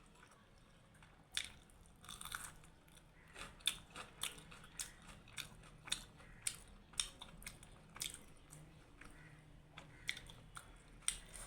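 Close-up chewing of a mouthful of food, with short wet mouth smacks coming roughly twice a second through the middle.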